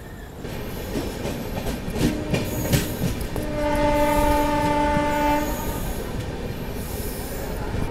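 Train rolling slowly into a station with wheel rumble and a few knocks over the rails. A train horn sounds: a faint short note about two seconds in, then a loud steady blast of about two seconds.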